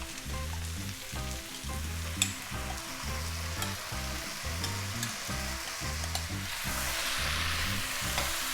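Stir fry sizzling in a hot pan as satay sauce goes in and is stirred, with a few clicks of the utensil. The sizzle grows louder about two-thirds of the way through. A faint backing track with a steady beat plays underneath.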